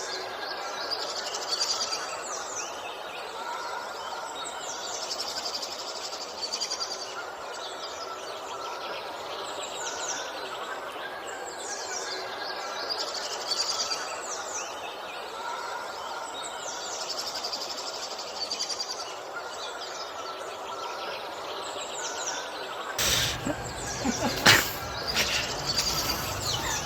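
Birds chirping in repeated quick runs of short, falling notes over a steady background hiss. Near the end the sound changes to a louder low rumble with a few sharp knocks.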